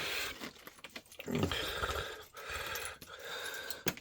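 Light, irregular clicks and rattles of handling and movement while the vacuum's dust bin is carried outside, with a sharp click near the end.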